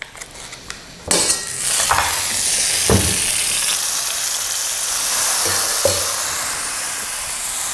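Hot stainless steel frying pan sizzling, starting suddenly about a second in as the pan is greased, and carrying on steadily as vegan pancake batter is ladled in and swirled round. A few short knocks of metal on metal from the pan and ladle.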